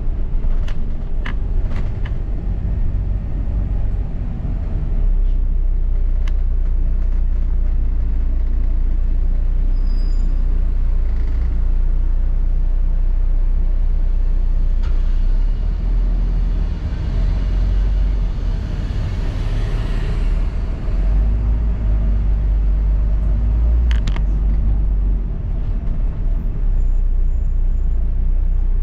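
Double-decker bus running, heard from on board: a steady low engine and road rumble with a few sharp rattling clicks. A hiss swells and fades about two-thirds of the way through.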